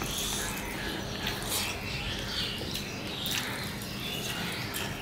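Close-miked eating sounds of two people eating rice and curry by hand: chewing, lip-smacking and fingers mashing rice against the plates, a steady run of small wet clicks.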